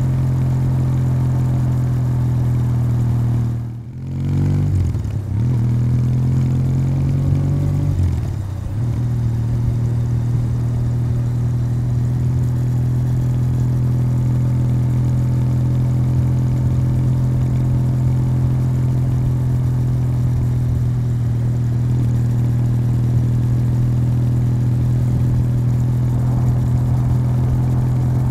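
Kawasaki W800's air-cooled parallel-twin engine running through its stock exhaust while riding at a steady cruise. About four seconds in the note briefly drops, then rises in pitch for a few seconds as the bike accelerates, before settling back to an even cruise.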